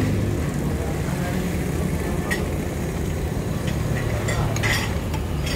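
Metal spoon and fork clinking and scraping on a plate, once about two seconds in and several times near the end. Under it runs a steady low engine rumble.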